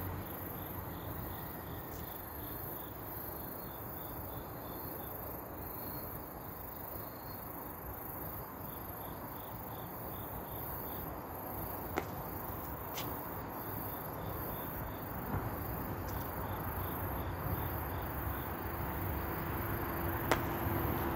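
Crickets chirping in an even, repeating rhythm over a low steady background rumble, with three sharp clicks in the second half.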